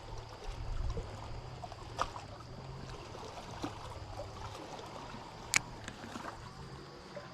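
Seawater lapping and sloshing over a steady low hum, with two sharp clicks, one about two seconds in and a louder one later.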